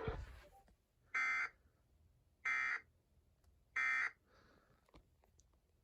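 Three short Emergency Alert System SAME data bursts, each a buzzy digital tone about a third of a second long, evenly spaced a little over a second apart. Their shortness marks them as the end-of-message (NNNN) bursts that close an alert.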